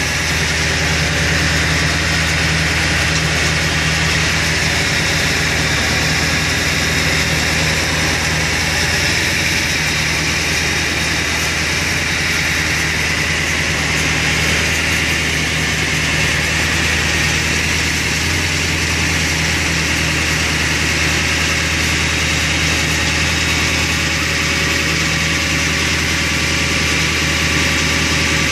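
2001 Ford F-550 tow truck's engine idling steadily, a constant low hum.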